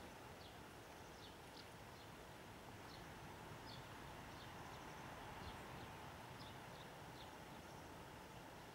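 Quiet outdoor ambience: faint short, high bird chirps repeating irregularly about once or twice a second over a low steady hiss.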